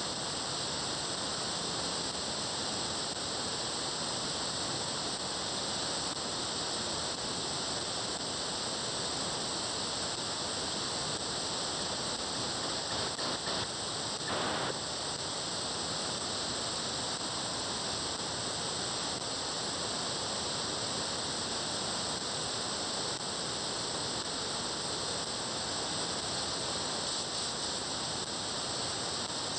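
Steady radio receiver static: an SDRplay RSP1 software-defined radio in upper-sideband mode near 436.7 MHz, giving even band noise. A brief, slightly louder burst of noise comes about halfway through.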